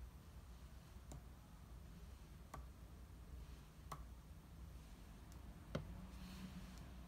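Faint taps of a pencil tip on a paper sheet, about five of them a second or so apart, the last near the end the loudest, over quiet room tone.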